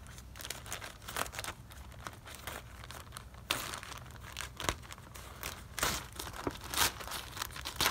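Scissors cutting open a plastic courier mailer bag, the plastic crinkling and crackling as it is handled. The sound comes in short, irregular snips, with a few sharper ones in the second half.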